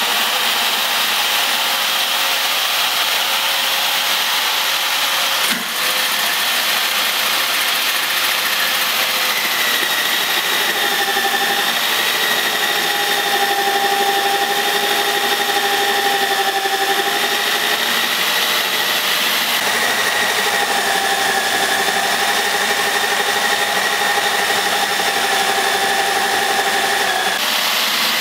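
Ridgid 1/2-inch variable-speed corded drill running steadily, its trigger held by a Velcro strap, driving a 6-inch hole saw down through plywood. A steady whine with a brief dip about five seconds in.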